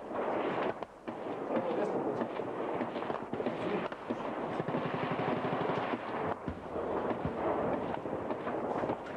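Sustained gunfire from rifles and machine guns, many shots overlapping irregularly. About halfway through, a machine gun fires a rapid, even burst, followed by two heavier bangs.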